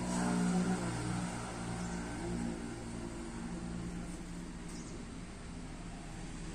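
Car engine running at idle with the bonnet open: a steady low hum.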